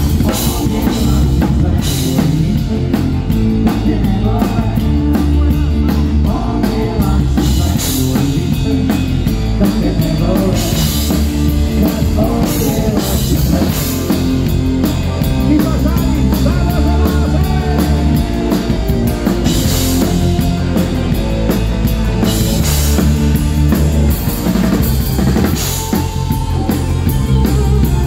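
Live rock band playing loud and steady, with the drum kit up front, electric guitar, bass guitar and keyboards behind it.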